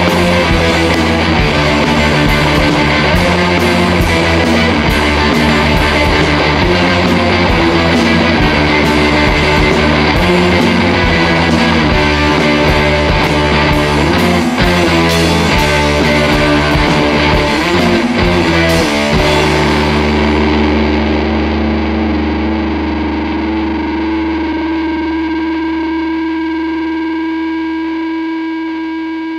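Rock music with distorted electric guitar; about two-thirds of the way through it ends on a held chord that rings on and slowly fades.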